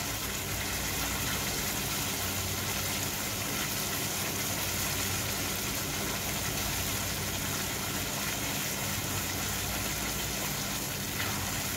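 Prawns and colocasia-leaf paste sizzling steadily in oil in a kadai while being stirred with a wooden spatula, over a steady low hum.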